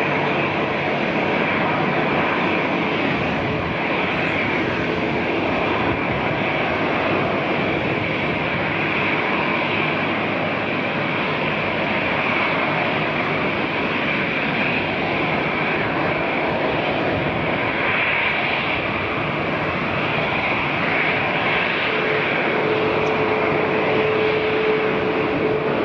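Airbus A330-900's Rolls-Royce Trent 7000 jet engines running at low taxi power: a steady rush with a high whine, and a steady hum that comes in again near the end.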